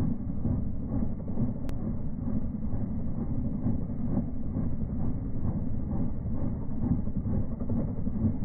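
Small two-bladed helicopter hovering low, a steady rumble of rotor and engine.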